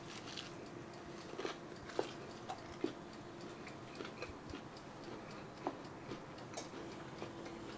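Faint chewing with small irregular crackles and clicks as a deep-fried soft taco is eaten and its batter pulled apart by hand, over a faint steady hum.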